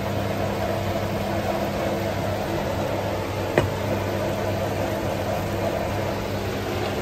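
Steady hum and hiss of an induction hob with a pan of vegetables cooking on it. A metal spoon clinks once against the pan about halfway through.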